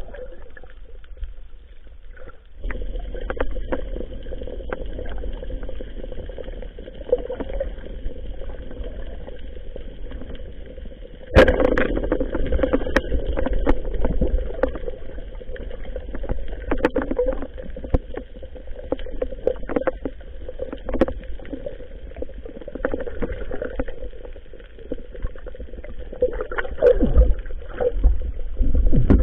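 Muffled underwater noise through an action camera's waterproof housing: water rushing and rumbling around the housing as the diver moves, with many short clicks and knocks. It gets louder about 11 seconds in.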